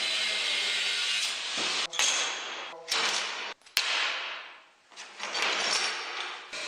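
Metal-cutting chop saw with a carbide-tipped blade cutting steel flat bar, in several short stretches, some stopping abruptly and some fading away as the blade winds down.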